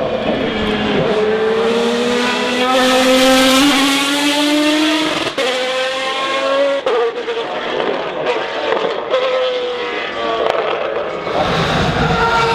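Maserati MC12 race car's V12 engine at full throttle, its note climbing through sharp upshifts as it pulls away. Near the end another race car's engine comes in.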